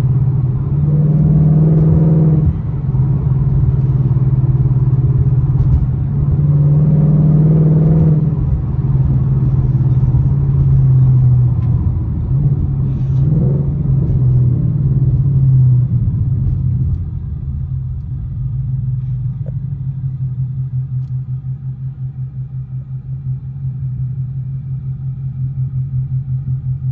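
Ford Mustang GT's 5.0-litre V8 with a loud exhaust, heard from inside the cabin while driving. The engine note swells under throttle three times, then drops after about sixteen seconds to a quieter, pulsing idle.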